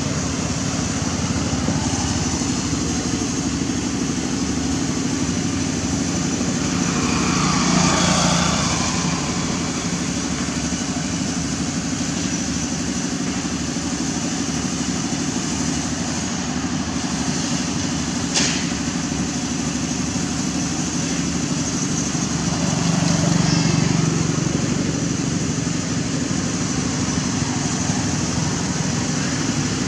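Road traffic over a steady low hum: motor vehicles pass on the road, swelling about 8 seconds in, falling in pitch as it goes by, and again about 23 seconds in. A single sharp click about 18 seconds in.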